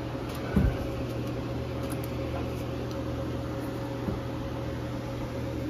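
Steady fan-like whir over a low electrical hum from an inverter driving an electric heater load, drawing about 31 amps from the battery during a 0.2C discharge capacity test. One short low thump about half a second in.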